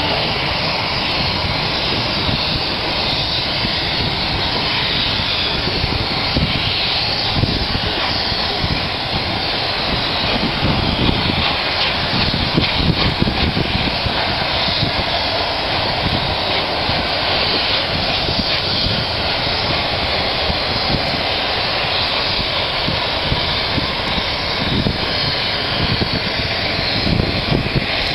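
LNER Peppercorn A1 Pacific steam locomotive Tornado working hard up a steep bank at a crawl. Its three-cylinder exhaust, heard from a carriage window several coaches back, is a steady, dense rush of sound with no let-up.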